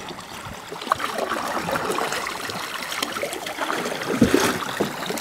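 Canoe paddles dipping and pulling through the water, with water splashing and trickling around the wooden canoe's hull. There is a sharp hit about a second in and a louder one about four seconds in.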